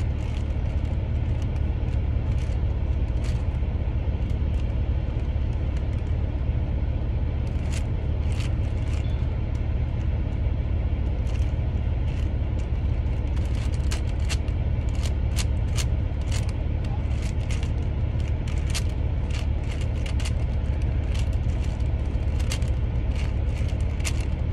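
Steady low rumble, with the plastic clicks and clacks of a 5x5 speed cube's layers being turned while it is scrambled; the clicks come sparsely at first, then thick and fast in the second half.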